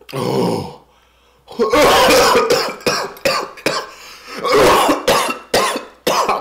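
A man coughing hard several times and clearing his throat, set off by the burn of very spicy fried chicken.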